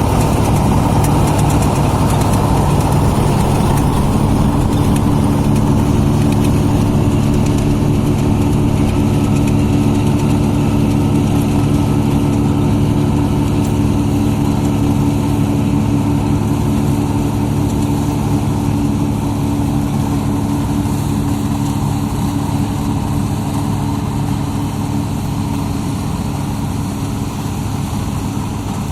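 Diesel engine of a New Holland M135 running steadily during soybean harvesting, a continuous low hum with several steady tones. It grows slightly quieter in the second half.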